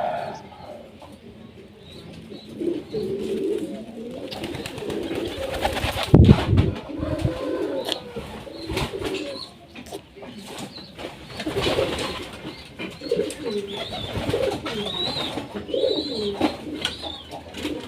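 Domestic pigeons cooing over and over, with a loud knock about six seconds in and a few short high chirps near the end.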